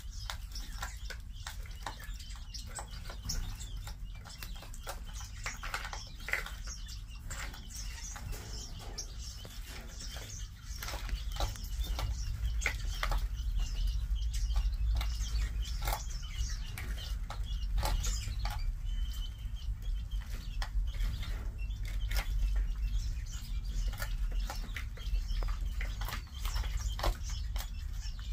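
King quail chicks and adults pecking at seed and greens in plastic feed bowls: a scatter of quick taps and clicks, with soft chirps. A low rumble joins and grows louder a little over a third of the way in.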